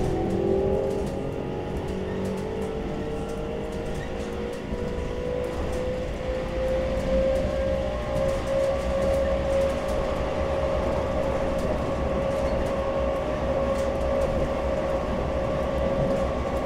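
CAF Urbos 3 tram heard from inside while running: a motor whine rises in pitch as the tram picks up speed over the first several seconds, then holds steady. Under it is a steady low rumble of the wheels on the rails.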